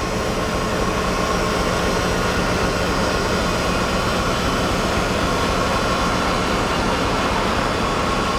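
A large truck's engine running steadily, with a constant mechanical drone and a faint steady whine.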